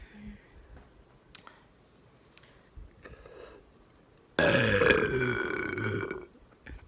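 A single long, loud burp close to the microphone, starting about four seconds in and lasting nearly two seconds, its pitch sagging slightly toward the end.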